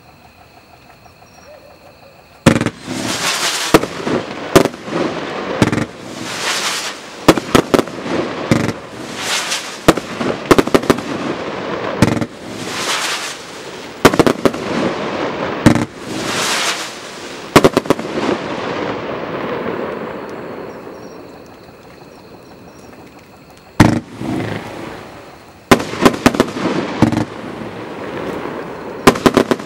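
XP4455 'Unplugged' firework going off: starting about two and a half seconds in, a rapid string of launches and bursts with crackling between them. It eases to a lull for a few seconds past the middle, then more bursts start again.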